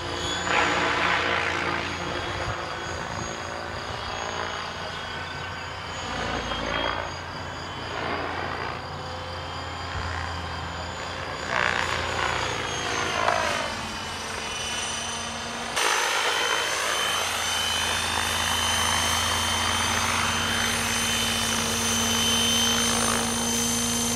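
Radio-controlled model helicopter flying: a high motor whine with rotor whoosh that swells and fades as it makes passes. About two-thirds of the way in, the sound changes abruptly to the helicopter running close by on the ground, a steady whine and rotor drone.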